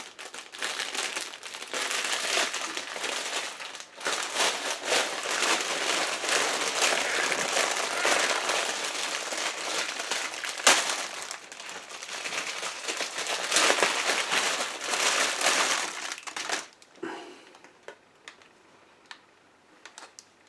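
Plastic packaging crinkling and crackling as it is pulled and unwrapped from around a boxed figure, for about sixteen seconds, then only a few faint handling sounds.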